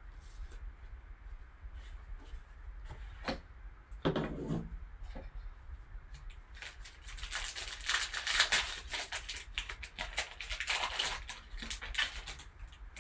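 Plastic wrapping on a sealed box of trading cards crinkling and tearing as it is opened: scattered small clicks and handling noise, then a dense crackling run over the last half.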